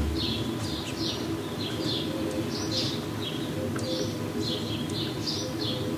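Bullock's orioles giving short, harsh chirping calls, repeated about two to three times a second.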